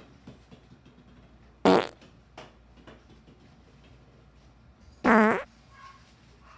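A woman's two short vocal exclamations, about two seconds in and again a little after five seconds, as her tossed balls miss the pots. Faint taps of the small balls landing on the wooden floor come in between.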